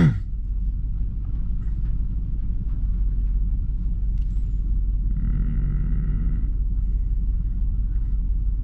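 Nissan Titan V8 engine idling with a steady low rumble; the engine is logging misfires on several cylinders. A brief steady tone sounds for about a second, about five seconds in.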